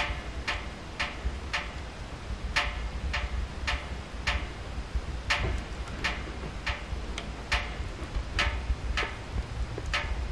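Wood crackling and popping in a wood-burning stove: sharp, irregularly spaced snaps about one or two a second over a steady low rumble of the fire.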